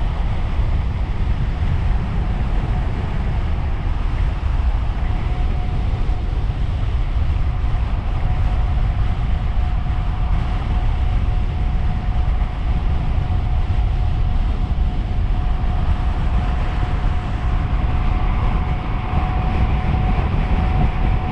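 Wind buffeting a bike-mounted action camera's microphone, with road and tyre rumble, as a dual-motor electric tandem bicycle rides at speed. A faint steady whine comes in about a third of the way through and holds.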